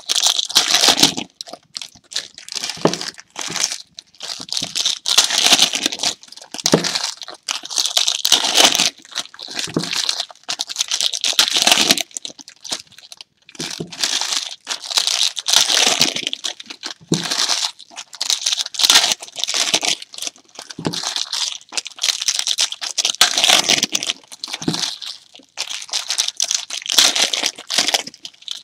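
Foil wrappers of trading-card packs being torn open and crinkled in the hands, in irregular bursts of rustling and crackling, with cards handled and stacked between them.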